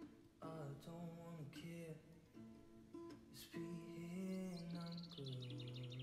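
Background music with acoustic guitar, and a fast high trill near the end.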